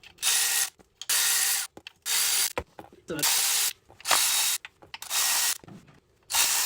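Ratchet wrench with a 10 mm socket loosening the transmission pan bolts, ratcheting in short bursts about once a second with brief pauses between.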